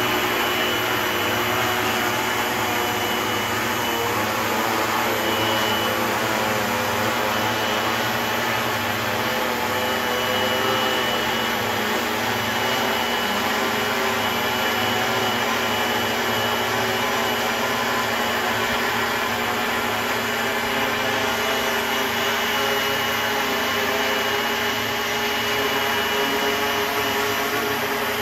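Multirotor agricultural spraying drone's electric motors and propellers running steadily, an even whir with several held tones that barely change in pitch.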